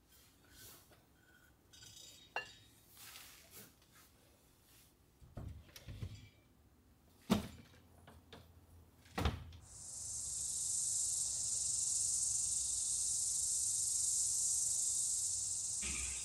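Light knocks and clicks of ceramic and cast-iron cookware being set on cabinet shelves, with two sharper knocks, then a steady high-pitched hiss for about the last six seconds.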